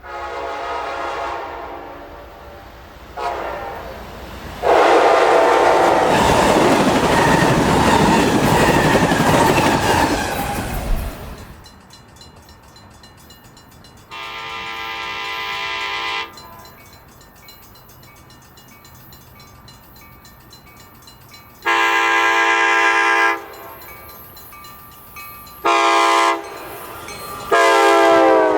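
Nathan K5LA five-chime locomotive air horn blowing a series of blasts. First comes a blast, then a brief toot, then a long blast over the loud rumble of a train passing close. Then comes a long, long, short, long sequence, the standard signal for a train approaching a grade crossing.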